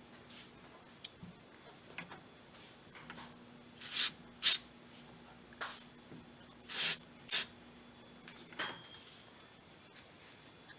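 Aerosol spray can sprayed onto a washing-machine part in four short hissing bursts, two quick pairs a couple of seconds apart, with a faint steady hum and a click near the end.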